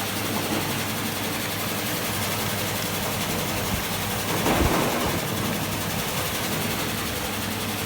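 Chili-cutting machine running with a steady motor hum, and a brief louder swell about four and a half seconds in.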